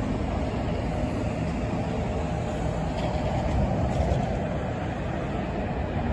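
Steady road traffic: cars driving along a multi-lane street, a continuous low rush of engines and tyres that swells slightly about four seconds in.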